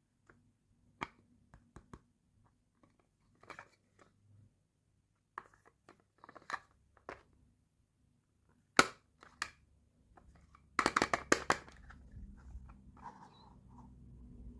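Small plastic miniature toy pieces handled, giving scattered clicks and taps, with one sharp click about nine seconds in and a quick run of clicks about two seconds later.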